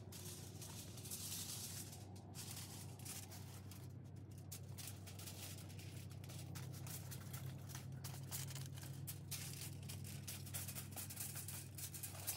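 Heavy-duty aluminium foil crinkling faintly in irregular little crackles as gloved hands fold and press it over a pellet grill's metal drip tray, over a steady low hum.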